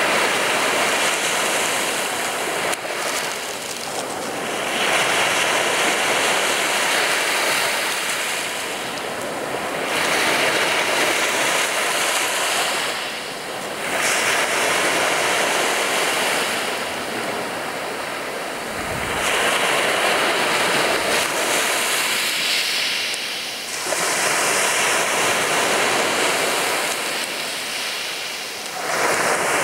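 Sea waves breaking and washing up a beach: a steady rush of surf that swells and eases about every four to five seconds.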